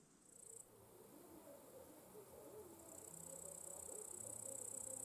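Meadow insects in the grass, crickets by their sound, giving a faint, steady, high-pitched trill. A short burst comes about half a second in, then the trill starts again about three seconds in and keeps going, growing louder.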